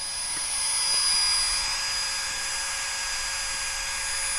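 Electric air pump running steadily, a high whine over a rushing hiss, inflating an inflatable kayak.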